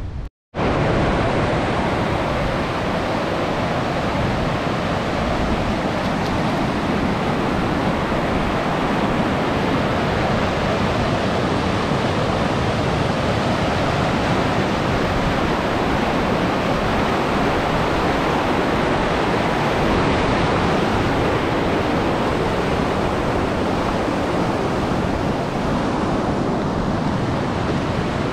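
Fast, muddy mountain river rushing over rocks and gravel: a steady, loud rush of water, broken only by a moment's gap just after the start.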